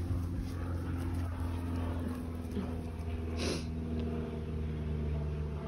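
Steady low hum of a distant motor, with a brief hiss about three and a half seconds in.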